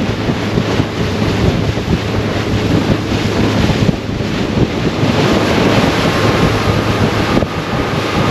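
Twin outboard motors running as a center-console boat cruises, with a steady low hum under wind buffeting the microphone and water rushing along the hull.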